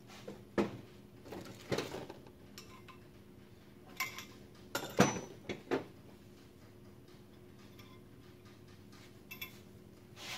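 Scattered metallic clinks and knocks from steel brake parts being handled: the heavy brake drum and its axle key being set down and worked with. A few sharp knocks come in the first six seconds, the loudest about five seconds in, then only faint clicks.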